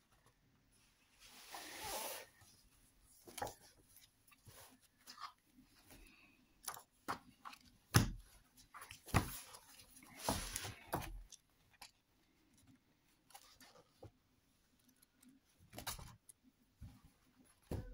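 Paper pages of a large hardcover book being turned and handled: a few soft swishes of paper, the clearest about two seconds in and around ten seconds in, among light taps and ticks from fingers on the pages.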